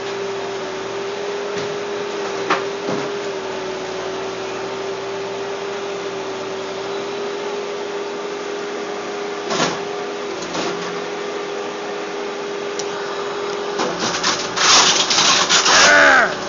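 Demolition machinery running steadily with a constant whine and a few knocks, then loud crashing and cracking with squeals near the end as more of the garage is torn out.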